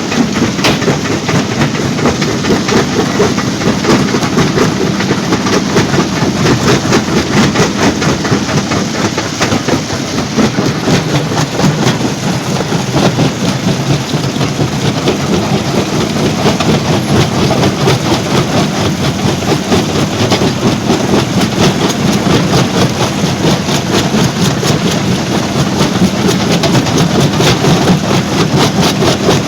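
Stone crusher running under load: a loud, continuous rattling clatter of rock being broken, over a steady machine drone.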